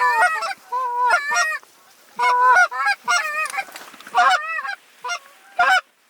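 Canada goose honks and clucks in about five loud bursts of quick, rising-and-falling notes, stopping shortly before the end.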